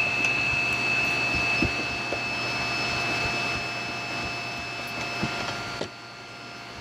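A steady machine hum with a high whine, cutting off suddenly near the end. Faint ticks of a hand screwdriver tightening the screws of a plastic deck-hatch ring are heard under it.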